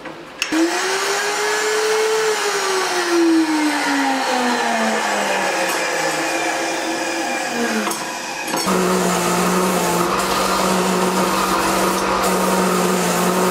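Electric power tools running. A high-speed motor's pitch climbs for about a second and a half, then sinks slowly for several seconds before stopping. Shortly after, a second motor runs at a steady lower pitch.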